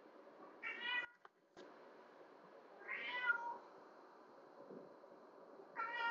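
House cat meowing three times, short kitten-like meows about two and a half seconds apart, which the captions put down to hunger.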